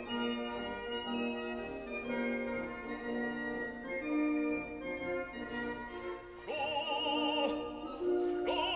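Classical background music: sustained organ-like chords, joined about two-thirds of the way through by a solo operatic voice singing with a wide vibrato.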